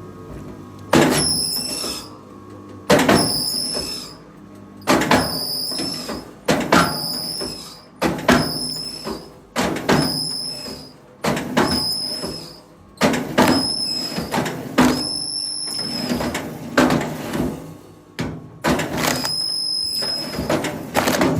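About a dozen heavy blows of a metal tool, one every one and a half to two seconds, each with a short, high metallic ring. These are typical of a hammer or axe driving a steel wedge into timber.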